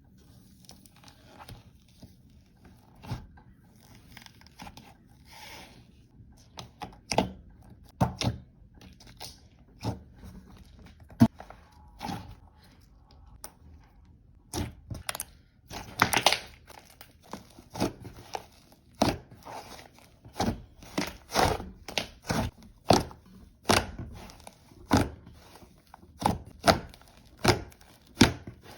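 Close-up crisp crunching and tapping of something being cut or pressed by hand. A few soft, scattered ones come first, then from about halfway a steady run of sharp crunches, about two a second.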